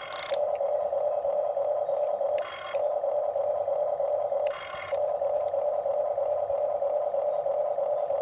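Huina radio-controlled toy excavator's electric motors whirring steadily as the arm and bucket move, the whir breaking three times into a brief higher, buzzier sound.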